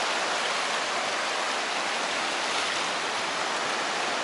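Small surf waves washing up over wet sand at the water's edge, a steady, even rush of water.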